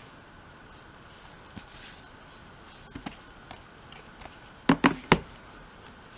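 A hardcover photobook album being handled, with faint rustling and a few light clicks, then three sharp knocks in quick succession about a second before the end as it is knocked against and set down on a table.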